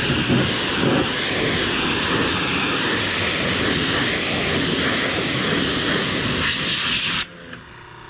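High-pressure water jet from a pressure washer wand spraying onto the sheet-metal twine box lid of a New Holland BC5070 square baler: a steady hiss with a slightly wavering tone that cuts off suddenly about seven seconds in.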